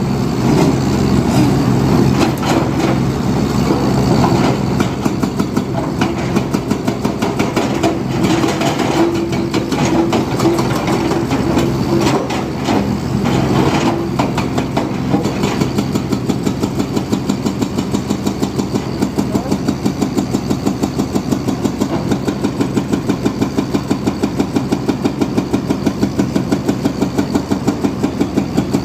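Diesel engine of heavy construction machinery running, working harder in the first half, then settling about halfway through into an even, pulsing idle.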